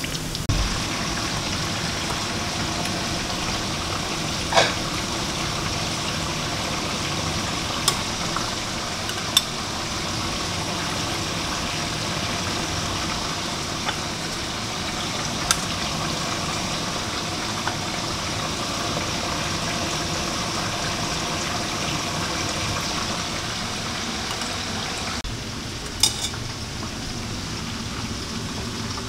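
Breaded fish sticks deep-frying in hot oil in a steel wok: a steady sizzle. It is broken by a few sharp clicks of metal utensils and dishes.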